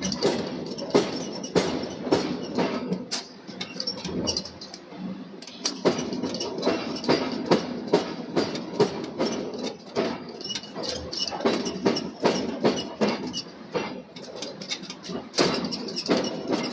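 Forging work on steel: irregular metal knocks and clanks, several a second, over a steady machine noise.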